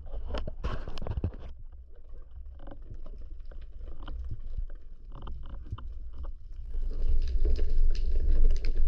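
Underwater noise picked up by a camera in its waterproof housing: a low rumble with scattered clicks and knocks. About two-thirds of the way in it grows louder, with sloshing and splashing water as the diver comes up near the surface.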